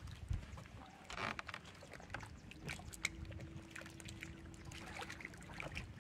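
Quiet sounds on a fishing boat's deck: scattered small knocks and clicks of bare feet and handling, over a low wind rumble, with a steady low hum in the middle for about three seconds.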